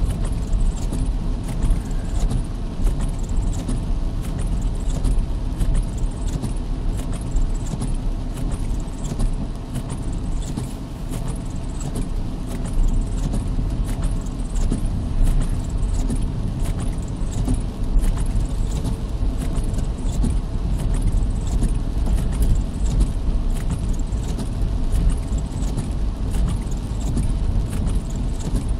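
Rain hitting the roof and windshield of a car, heard from inside the cabin as a dense, steady spatter over the low rumble of the car driving on a wet road.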